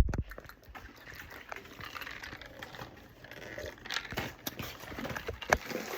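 A sharp thump, then scattered light clicks and knocks, like things being handled.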